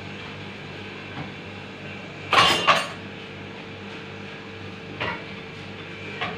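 Kitchen dishes or pots being handled: two loud clattering knocks about two and a half seconds in, then a lighter one about five seconds in, over a steady low hum.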